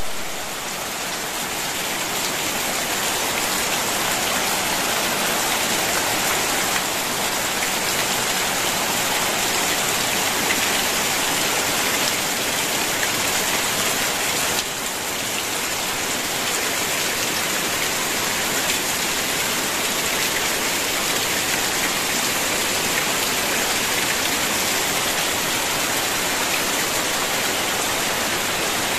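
Heavy rain falling steadily on dense foliage, a dirt yard and roof tiles: an even, unbroken hiss of drops.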